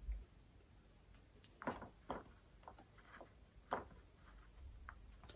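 Faint handling noise of coax cable and its stripped wire braid being worked by hand on a wooden workbench: a handful of small, sharp clicks and taps at uneven intervals, with a low bump at the start.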